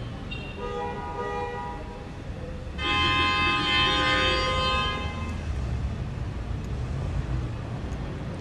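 A vehicle horn blares for about two seconds, starting and stopping abruptly, over a steady low rumble of traffic; shorter tonal notes sound just before it.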